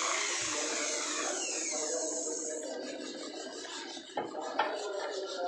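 A hiss with a faint falling whistle through it fades and cuts off about halfway in. Then come two short knocks a moment apart as the metal turbocharger centre housing is set down and handled on the work surface.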